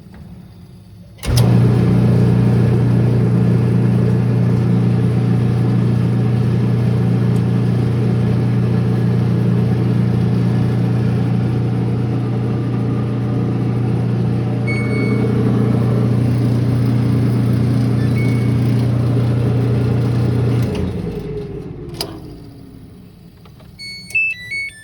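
Samsung front-load dryer's drive motor and blower fan running with the belt off and drum removed, a steady loud hum that starts about a second in and runs for about twenty seconds, then switches off and winds down with a falling pitch. The run tests whether the squeal comes from the motor and blower, and it does not. A few short electronic beeps near the end.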